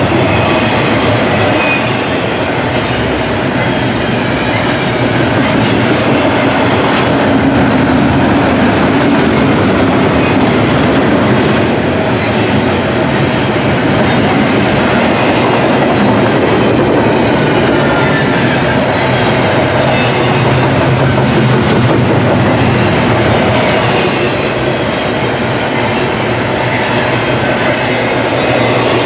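Double-stack intermodal container train passing close by: a loud, steady rumble and clatter of the well cars' wheels rolling on the rails.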